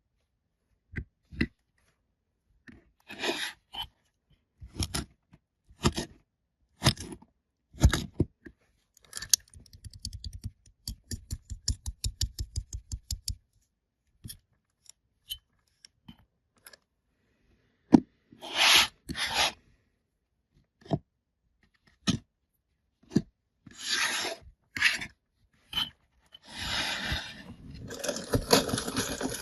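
Kinetic Sand packaging being handled and opened: separate scissor-like snips and scrapes, a quick run of small clicks in the middle, and plastic rustling and tearing near the end.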